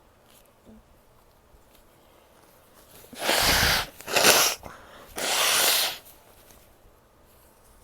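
A woman forcing air out hard through her nose three times in quick succession, sneezing or clearing her nose; the middle burst is the shortest and sharpest.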